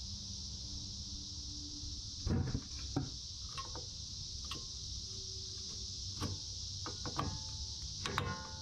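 Cicadas droning steadily and high-pitched throughout. Over it come scattered light metallic clicks and taps as drum-brake shoes and springs are handled, the last few near the end ringing briefly.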